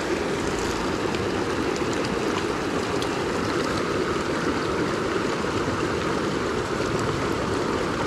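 Small, shallow rocky mountain creek running over stones: a steady rush of flowing water.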